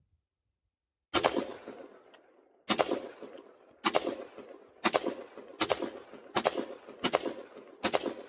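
AR-15 rifle firing single semi-automatic shots in quick succession, eight in all starting about a second in, each crack followed by a short echoing tail. The shots come faster as the string goes on, from about a second and a half apart to under a second apart.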